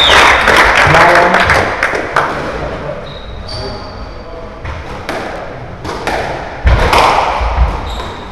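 Squash rally: the ball cracks off rackets and the walls every second or so, the loudest hit a little before the end, with short high squeaks of court shoes on the wooden floor. For the first two seconds, spectators' chatter and noise drowns the court, then fades.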